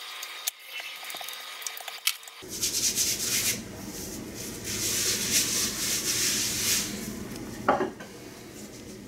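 Dry rubbing and scuffing of flour-dusted noodle dough being worked by hand on a granite countertop, with a few light knocks at first and a short squeak near the end.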